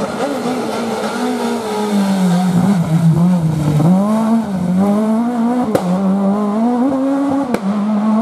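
Renault Clio rally car engine slowing into a hairpin, its note falling, then revving hard as it accelerates away. Two sharp cracks come as it shifts up, the note dropping after each.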